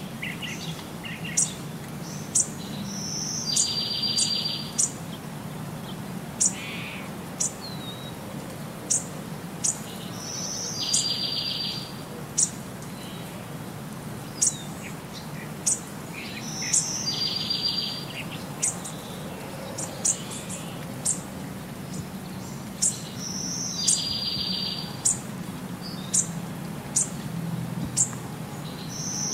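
Birdsong: sharp high chirps every second or so, and a short buzzy trill that comes back about every six or seven seconds, over a low steady hum.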